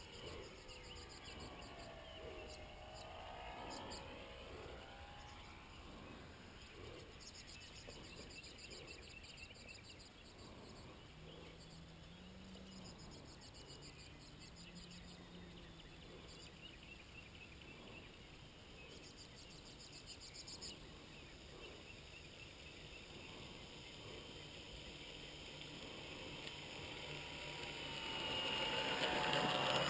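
Electric motor of a Multiplex FunCub RC plane whining faintly, its pitch gliding in the first few seconds, then growing loud with a steady whine near the end as the plane taxis up close. High-pitched insect chirring comes in rhythmic spells in between.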